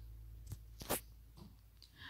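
Tempering seeds (fenugreek, cumin and mustard) frying in hot oil in a clay pot, giving two sharp pops about half a second and a second in and a fainter one shortly after, over a low steady hum.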